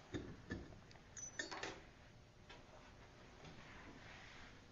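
A few faint clicks and light knocks as small-engine parts, the flywheel and recoil starter housing, are handled on a workbench, mostly in the first second and a half; then only faint room hiss.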